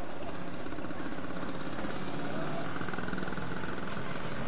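Steady street noise with a motor vehicle engine running.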